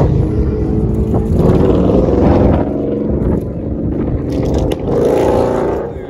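A car engine running, with wind rumbling on the microphone.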